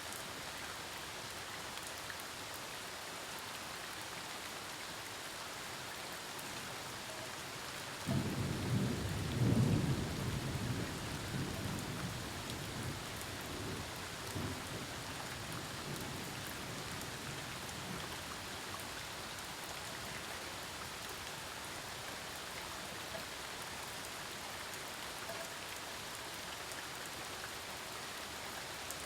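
Steady rain falling during a thunderstorm, with one roll of thunder that breaks in sharply about a third of the way through, peaks a couple of seconds later and rumbles away over about ten seconds.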